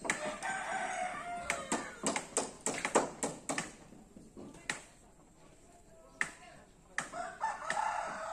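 Roosters crowing twice, one call just after the start and another near the end, over a scatter of sharp, irregular knocks.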